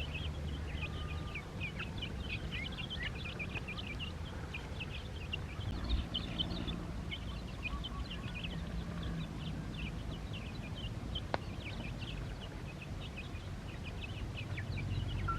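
A flock of ducklings peeping together in a dense, unbroken chorus of short, high, downward-sliding peeps, over a low hum.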